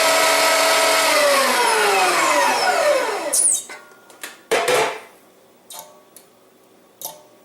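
LEM No. 8 countertop electric meat grinder's motor running with a steady whine, then switched off about a second in and winding down, its pitch falling over about two seconds. A few knocks and clatters follow.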